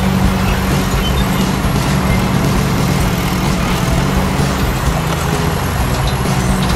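A heavy vehicle engine running steadily, with a constant low drone.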